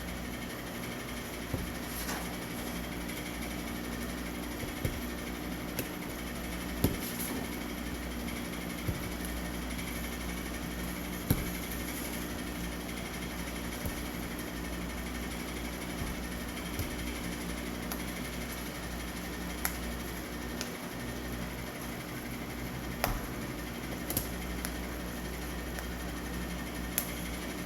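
Steady low machine hum in a small workshop, with about a dozen short, sharp clicks and ticks at irregular intervals as model-rocket centering rings are cut out and handled.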